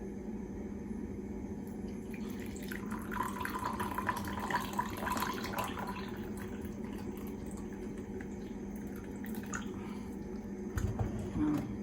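Brewed coffee being poured from a French press into a cup, a trickling pour for a few seconds starting about two seconds in, the plunger left unpressed because it is broken. A soft knock near the end.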